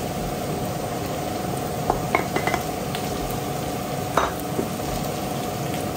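Boiled potato cubes and onion sizzling gently in oil in a frying pan while a wooden spatula stirs them in. A few light knocks against the pan come about two seconds in and again after four seconds.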